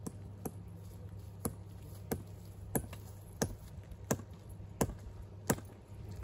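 Steady low hum of an electrical substation, with a sharp tap or knock coming evenly about every two-thirds of a second.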